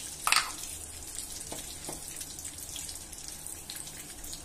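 Oil heating in a black iron kadai on a gas burner, giving a soft, steady sizzling hiss. There is one sharp click about a quarter second in and two faint ticks a little later.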